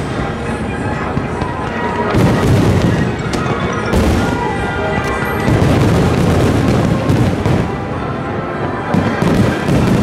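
Starmine firework display: many shells bursting in quick succession, a dense run of booms.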